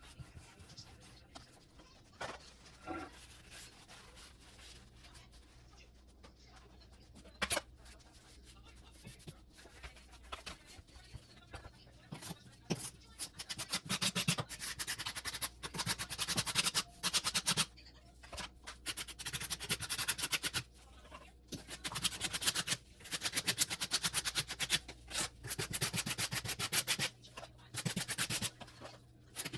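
Rubbing and scraping strokes across tile while grouting. It is quiet with a few clicks at first, then from about halfway through comes in quick back-and-forth runs with short pauses between them.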